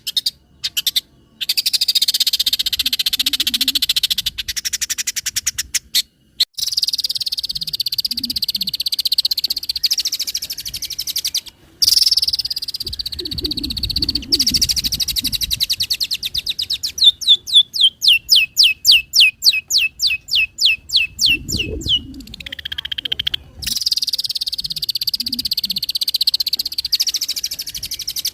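Long-tailed shrike (cendet) singing a loud, very fast chattering song in phrases broken by short pauses. In the second half it gives a run of quick falling notes, about five a second, then a single falling sweep.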